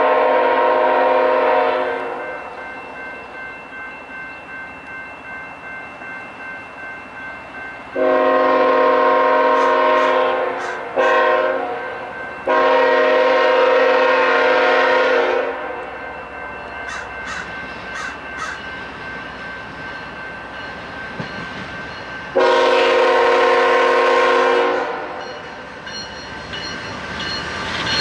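Diesel freight locomotive's multi-chime air horn sounding a long blast, then long, short, long, then another long blast: the grade-crossing signal. Between the blasts the train is heard running.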